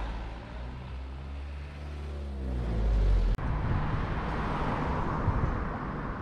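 A small truck's engine running as it drives past close by, getting steadily louder. It cuts off abruptly a little over three seconds in, and after that comes steady wind and road noise from riding a bicycle.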